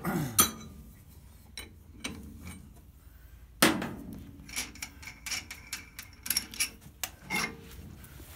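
Metal knocks and clanks as the brake lathe's twin-cutter head is handled and lifted off the machine: a sharp clank about three and a half seconds in, then a run of lighter metallic clicks and short rings.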